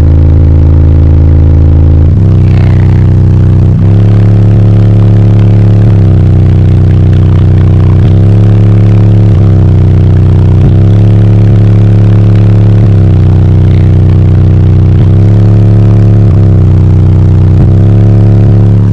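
Four 15-inch Ascendant Audio Mayhem subwoofers in a car, driven by two CT Sounds 7000-watt amps, playing very loud sustained bass notes that step to a new pitch every second or two. The recording is pinned at full level the whole way through. The bass cuts off suddenly at the very end.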